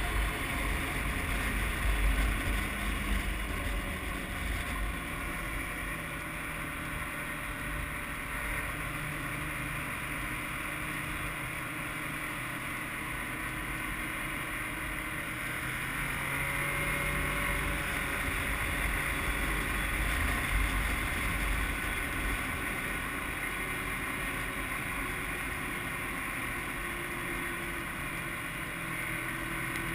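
Snowmobile engine running steadily under way, its pitch shifting about halfway through, with wind rumbling on the microphone.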